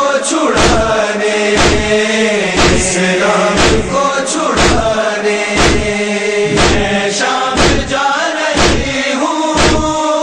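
Noha party's voices chanting the lament's melody together without clear words, over rhythmic matam, hands beating on chests about once a second.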